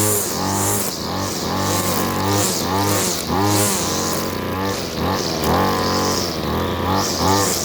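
Two-stroke string trimmer engine revving up and falling back over and over, about once a second, as the throttle is pulsed while cutting thick grass.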